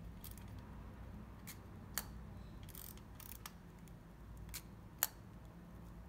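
Small metal clicks from the controls of a Ducati Sogno half-frame 35 mm camera as it is worked by hand. Two sharp louder clicks come about two and five seconds in, among fainter clicks and brief handling scrapes.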